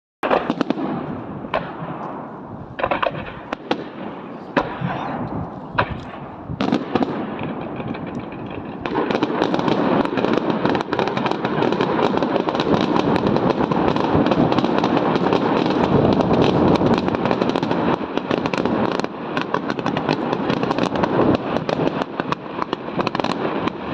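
Fireworks display: scattered sharp bangs and crackles at first, then from about nine seconds in a dense, continuous barrage of bangs and crackling.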